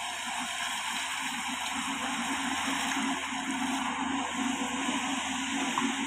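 Diesel engine and hydraulics of a JCB tracked excavator running steadily while it digs and lifts its bucket.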